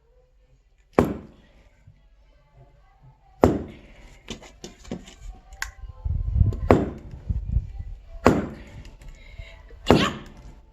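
Axe chopping into firewood logs: five sharp chops at uneven intervals, each with a short ring-out.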